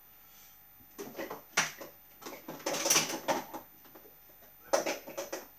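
Items being handled on a kitchen worktop: a few sharp knocks and clatters with a short spell of rummaging and rustling in the middle.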